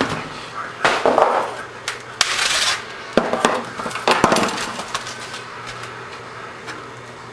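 Kitchen handling sounds as raw chicken breasts go onto an electric contact grill: a series of sharp knocks and clatters, with a plastic bag crinkling for about half a second a little after two seconds in.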